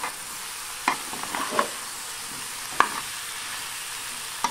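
Cauliflower and green vegetables sizzling in a frying pan as a spatula stirs them, with scattered scrapes and knocks of the spatula against the pan; the sharpest knock comes a little after the middle.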